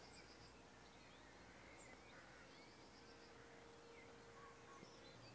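Near silence: faint open-air quiet with a few distant bird chirps.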